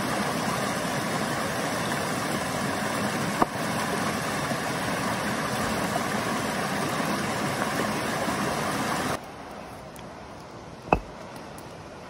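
Shallow mountain stream rushing and splashing over rocks, a steady rush of water. About nine seconds in it stops abruptly, leaving a quieter background with one sharp knock near the end.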